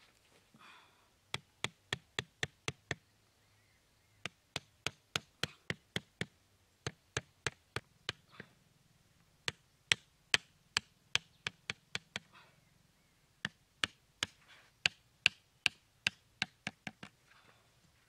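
Hammer striking the top of a thin wooden stake, driving it into dirt: runs of sharp knocks, about three a second, in five bursts with short pauses between.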